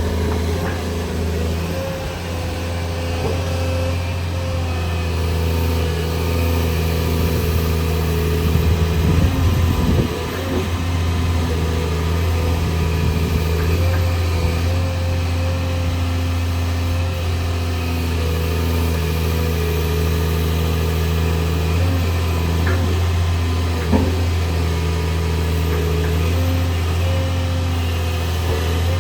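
Volvo EW210D wheeled excavator's diesel engine running steadily, with a brief louder patch about nine seconds in and a single click near the end.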